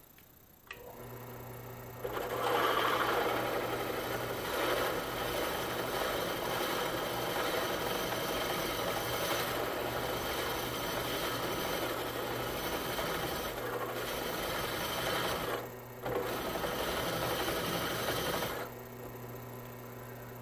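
WEN benchtop drill press motor starting with a steady hum, then its twist bit cutting into a steel flat bar with a loud, even cutting noise for about sixteen seconds. The cutting lets up for a moment near the end. Then it stops, and the bit spins free with only the motor humming.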